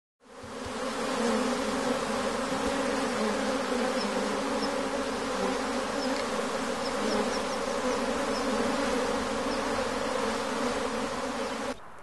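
Honeybees buzzing in a steady, unbroken hum that fades in at the start and cuts off suddenly near the end.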